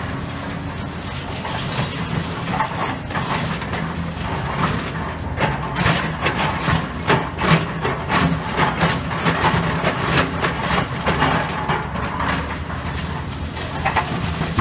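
Hydraulic excavator engine running steadily while its bucket scrapes and knocks through concrete rubble and steel rebar, with many irregular clanks and crunches.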